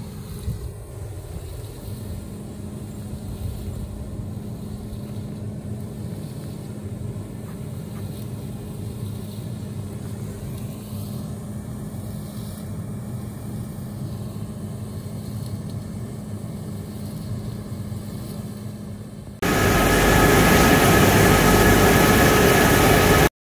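Sawdust drying line of a wood pellet plant running: a steady industrial drone with a constant low hum from the exhaust cyclone stack. About 19 seconds in it switches to the much louder Brikol drum dryer machinery running inside, with a steady high whine, and then cuts off.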